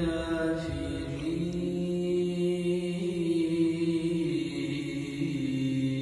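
A man's solo voice reciting the Quran in the melodic Istanbul style, holding long notes with ornamented turns; the held pitch steps down after about four seconds.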